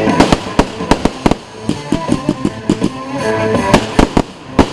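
Fireworks going off in a rapid, irregular string of sharp bangs and cracks, several a second, with a big bang near the end. Music plays underneath.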